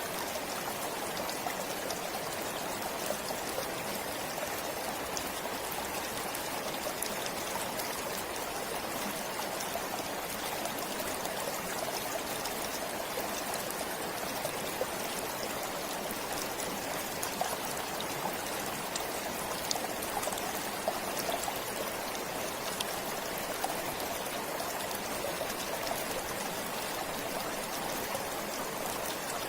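A forest stream flowing and trickling steadily, with small splashes and droplet sounds scattered through it.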